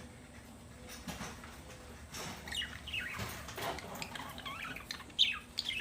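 Lovebirds chirping: a run of short, high chirps that fall in pitch, starting about two seconds in, with the loudest about five seconds in.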